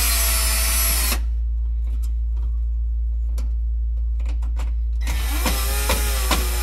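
Milwaukee cordless drill/driver backing out the screws that hold an oven's thermal cutoff: a run of about a second at the start, a few small clicks, then a second run starting about five seconds in, its pitch dipping and rising as the trigger is eased.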